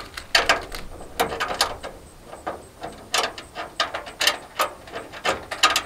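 Bolts and nuts being hand-started in the channel of an aluminum gazebo beam: an irregular run of sharp metal clicks and small scrapes, about two a second.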